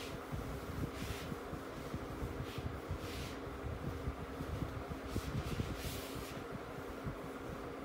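Whiteboard being wiped clean by hand: several short, airy swishes of the rubbing strokes over a steady fan hum.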